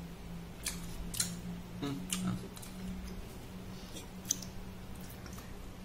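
Scattered dry crackles and clicks of salted snakehead fish being picked apart by hand, over a low steady hum.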